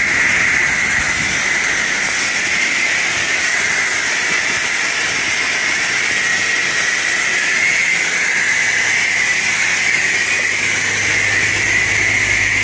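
High-pressure spray wand at a self-serve car wash blasting water, a steady loud hiss as the jet hits the car and the ground. A low hum joins about eight seconds in.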